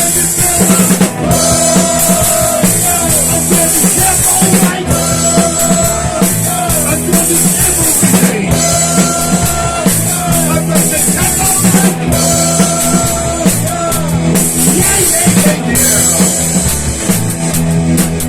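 Instrumental rock music with a full drum kit and guitar, no vocals.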